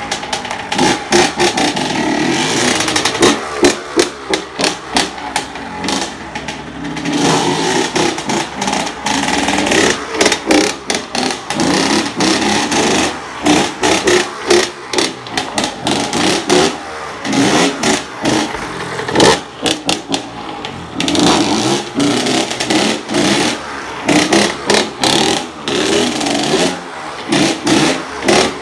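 Honda CR80 two-stroke motocross bike engine revving hard, the throttle opened and shut again and again so the pitch and loudness keep rising and falling, as the bike is ridden in wheelies.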